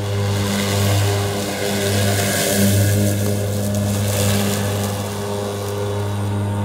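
Engine of a remote-controlled slope mower running steadily with a low hum as the mower cuts through tall weeds. A rushing hiss swells for a couple of seconds in the middle.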